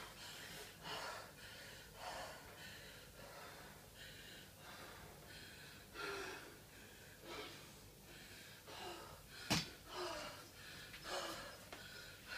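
A woman's heavy, wheezy, out-of-breath breathing, a gasp roughly every second, as she recovers from hard exercise. A single sharp click cuts in about two-thirds of the way through.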